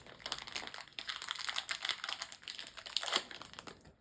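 Plastic blind-bag packaging crinkling and crackling as it is handled and opened, a busy run of small crackles that stops near the end.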